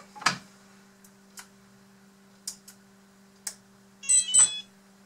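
A few light clicks from handling the RC hydraulic excavator over a steady low hum, with a short high chirping beep about four seconds in.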